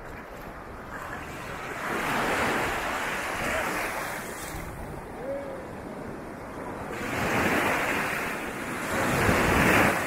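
Small ocean waves breaking and washing through shallow surf, rising in three rushing surges, the loudest near the end.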